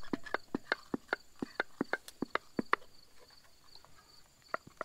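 A new tap being turned by hand with an old T-handle tap wrench in the threaded port of a tractor manifold, to cut fresh threads: a run of sharp, irregular metal clicks, about four or five a second at first and thinning out past the middle. A faint steady insect trill carries on underneath.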